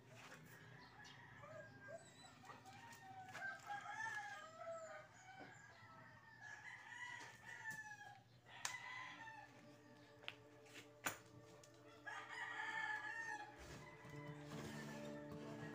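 Roosters crowing, several long calls overlapping at a low level, with a few sharp knocks between them. Music comes in near the end.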